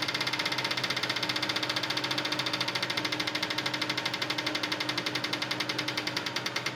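Alfa Romeo 2.0 JTS fuel injectors pulsing on an injector test bench, with a rapid, even clicking and the hiss of the spray, over the steady hum of the bench. This is a flow test comparing the injectors, in which the cylinder 3 injector delivers less than the others.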